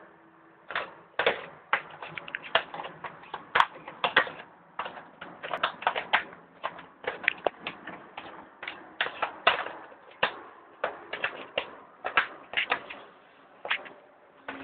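Baltério laminate floor making dense, irregular sharp clicks and cracks, a fault complained of in a newly bought floor.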